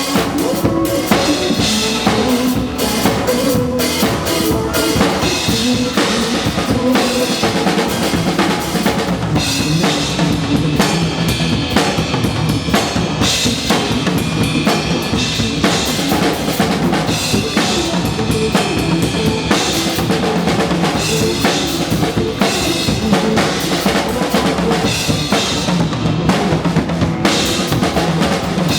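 Drum kit played continuously at an even, driving beat: kick drum, snare hits and cymbal wash, over recorded backing music.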